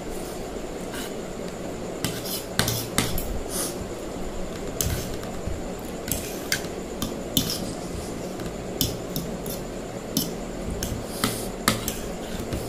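Metal fork and spoon clinking and scraping against a plastic plate while noodles are eaten, as irregular sharp clicks from about two seconds in, over steady low background noise.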